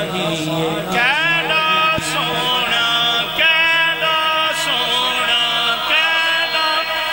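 Male voices singing a Punjabi naat in long, drawn-out melismatic phrases, the pitch sweeping sharply upward about a second in.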